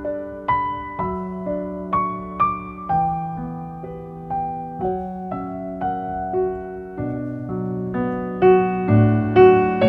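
Background piano music: a slow melody of struck notes, about one or two a second, over held lower notes, growing louder with fuller bass chords near the end.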